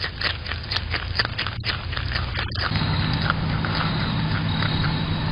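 An animal chewing and crunching food, rapid crunches several a second, over a low hum that grows steadier about halfway through.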